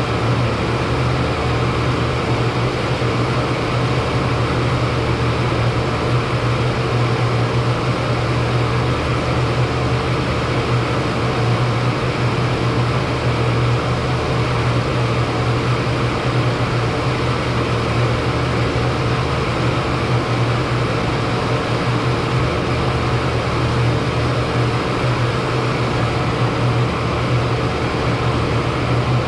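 40-ton Trane HVAC unit running steadily: a strong low hum under an even rushing noise, with a fainter higher tone held throughout.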